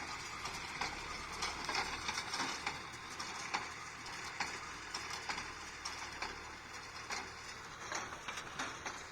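Tractor-drawn square baler working, a low steady hum with irregular clicks and rattles throughout.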